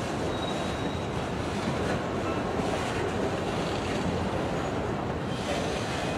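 Train cars rolling past on the rails, a steady noise of wheels on track, with a faint brief high wheel squeal about half a second in.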